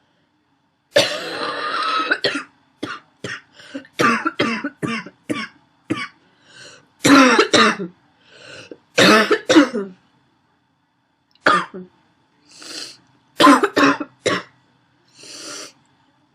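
A woman's wheezy, barking cough: repeated fits of harsh coughs starting about a second in, with fainter wheezy breaths drawn between the fits and a short pause after about ten seconds.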